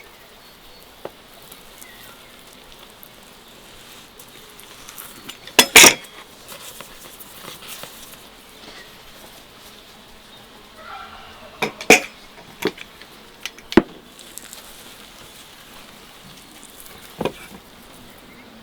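Dishes and utensils clinking and knocking in scattered sharp strikes, the loudest a double knock about six seconds in and a few more near the end, over a faint, even background hiss.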